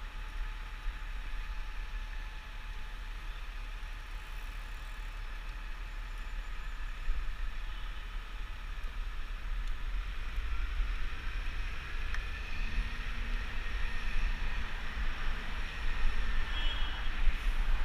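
Wind rumbling on the microphone of a handlebar-mounted camera on a moving bicycle, over a hiss of city traffic. It grows louder in the last few seconds as the ride speeds up.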